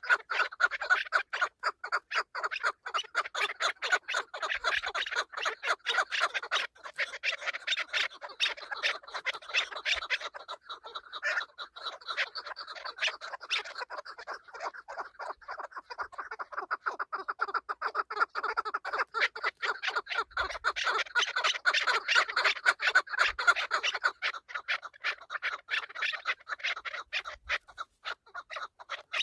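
Chukar partridges calling: a continuous rapid series of clucking notes, many a second.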